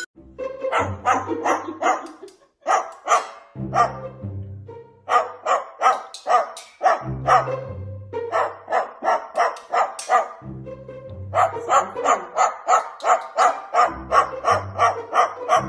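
Background music with a repeating bass line, over which come rapid, evenly spaced bark-like yaps, about three a second, in several runs.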